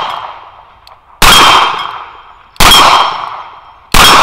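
A Smith & Wesson Governor revolver firing .45 ACP hand loads, three shots about 1.3 seconds apart. Each shot is trailed by a metallic ring that dies away over about a second.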